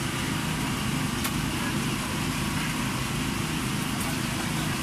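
Steady low mechanical hum, like a running engine, under a constant hiss of background noise, with two light clicks about a second in and near the end.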